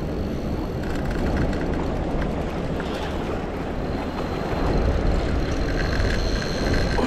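Wind rumbling on the microphone over a fast-flowing river. A faint, thin high whine comes in about a second in and again near the middle, from the Daiwa Certate 4000 spinning reel being cranked.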